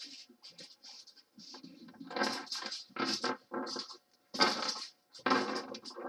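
Small plastic bags of diamond-painting drills crinkling as they are picked up and moved by hand, in irregular bursts, the loudest about four and a half seconds in.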